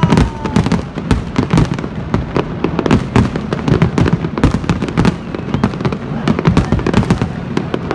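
A fireworks display with many shells bursting in quick succession: dense, overlapping bangs with no pause.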